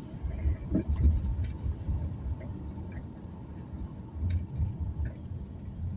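A car driving: an uneven low rumble with a few scattered clicks and knocks.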